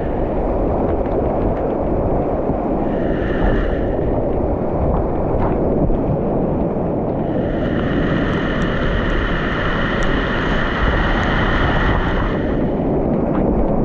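Whitewater rapids on a creek at high water, rushing loud and steady close around a kayak. Waves break and splash over the kayak's bow as it runs the rapid.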